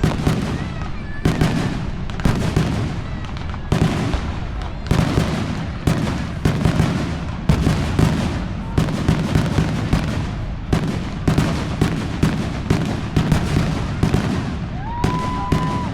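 Fireworks display: a rapid run of sharp bangs from bursting shells, roughly one to two a second, over a continuous low rumble of crackle and echo. A short whistling tone rises and holds briefly near the end.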